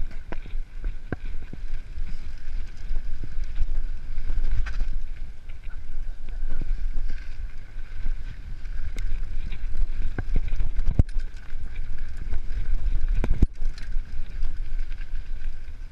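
Mountain bike riding a rough dirt trail, heard from a camera on the bike: a steady low rumble of wind on the microphone and tyres on the ground, broken by scattered sharp knocks and rattles as the bike hits bumps, two of the harder ones near the end.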